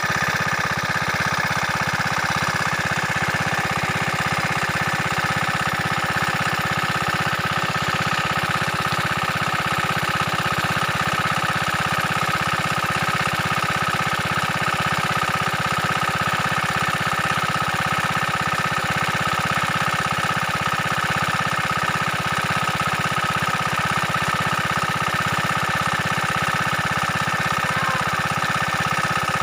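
Air-cooled Kirloskar diesel water pump engine running steadily, with a fast, even firing beat and a steady high whine on top.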